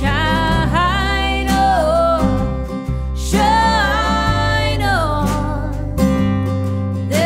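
Live folk-bluegrass band: a woman sings held, gliding phrases over a strummed acoustic guitar and a steady electric bass line.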